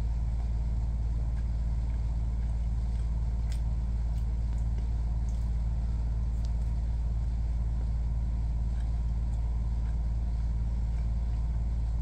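A steady low hum, with a few faint clicks from eating with a metal fork.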